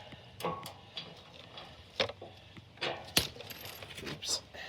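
A handful of sharp, irregular metallic clinks from tools and bolt hardware knocking against the metal hitch mount while it is being bolted to the RV frame.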